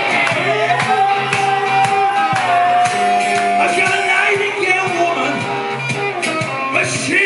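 Live blues-rock band playing, drums keeping a steady beat under a long held lead note that steps down in pitch partway through.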